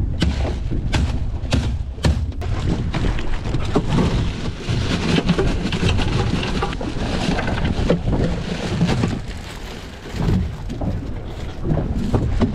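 Three sharp knocks of a wooden handle on a bag of ice, breaking it up. Then loose ice rattles and slides out of a crinkling plastic bag into a boat's fish box, with wind rumbling on the microphone.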